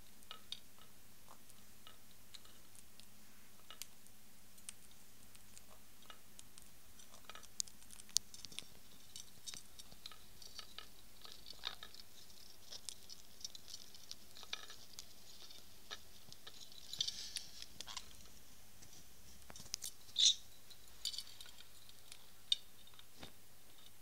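Pet parrots eating seed mix from a glass dish: scattered small clicks and ticks of beaks picking and cracking seed. A short high call about twenty seconds in is the loudest sound.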